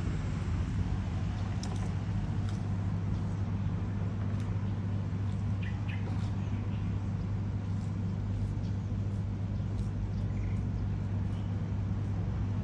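A sulcata tortoise biting and tearing lettuce leaves, heard as scattered faint crisp clicks, over a steady low hum. A few brief chirps come about six seconds in and again near ten seconds.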